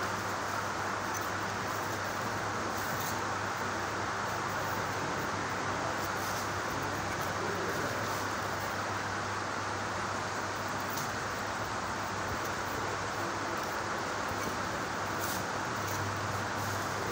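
Steady background noise with a low hum, unchanging in level, with a few faint taps scattered through it.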